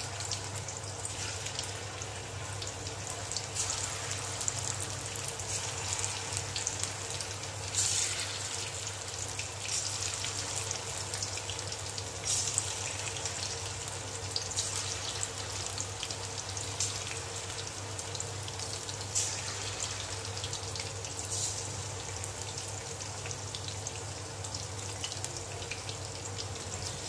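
Chicken pakoras deep-frying in hot oil in a kadai: a steady sizzle that flares louder several times as more battered pieces are dropped in. A steady low hum runs underneath.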